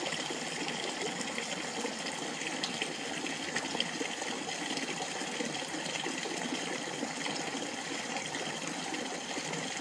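A steady rush of flowing water, even in level throughout, with a few faint short high ticks above it.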